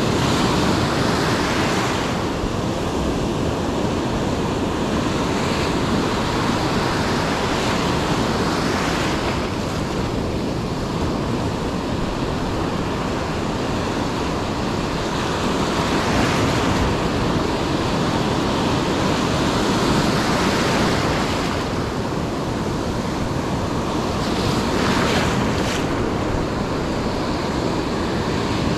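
Ocean surf breaking and washing onto a beach, a steady loud hiss that swells as a wave breaks every several seconds, with wind on the microphone.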